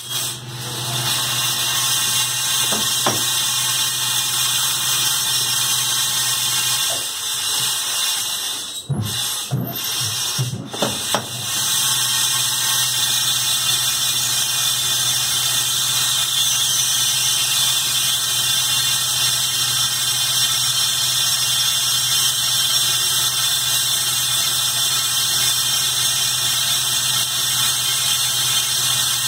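Capstan lathe running with a steady high-pitched whine from the spinning spindle and tools cutting brass. About nine to eleven seconds in, the sound dips and breaks with a few brief knocks.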